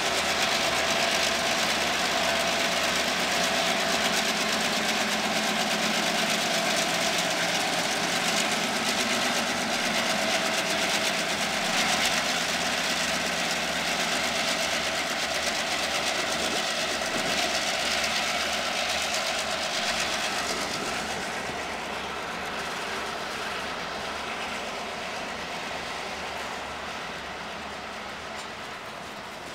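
Two diesel switcher locomotives passing close by, their engines running steadily, followed by boxcars rolling past on the rails. The engine sound fades gradually over the last several seconds.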